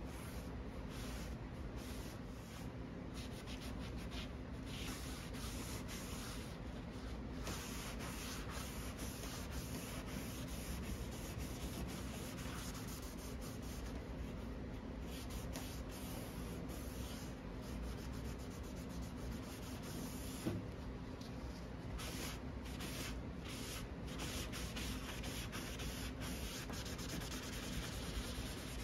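Cloth and paper towel rubbing and wiping wood stain over a wooden chest top: soft, repeated wiping strokes over a steady low hum.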